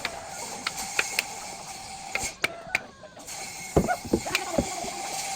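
Scattered sharp clicks and knocks, then a few dull thumps about four seconds in, over a faint steady hum.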